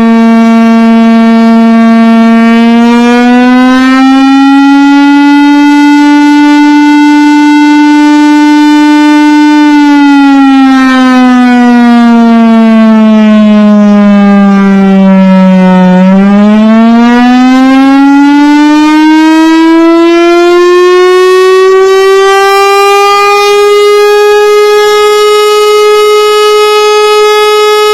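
Air raid siren sounding loud, one continuous tone rich in overtones. It rises and holds, then falls slowly to its lowest pitch about 16 seconds in, then climbs higher than before and holds there.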